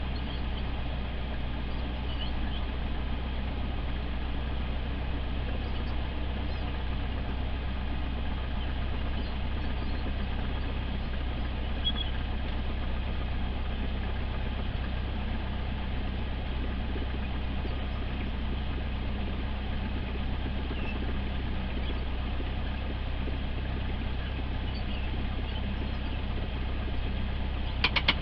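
Cessna 172's piston engine and propeller running steadily at low taxi power, an even low drone with no change in pitch. A few sharp clicks come at the very end.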